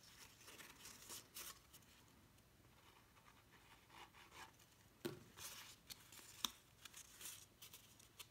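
Faint rustling and scraping of cardstock paper petals being handled and pressed together, with scattered small clicks, the sharpest about five and six and a half seconds in.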